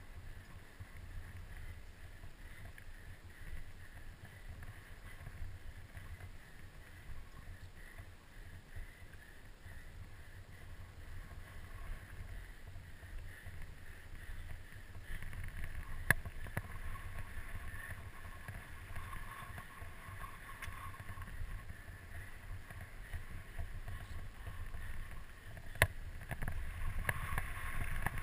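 Mountain bike descending a dirt singletrack: wind buffeting a helmet-mounted camera's microphone over the low rumble of tyres on the trail, getting louder in the second half. Two sharp knocks stand out, one a little past halfway and one near the end.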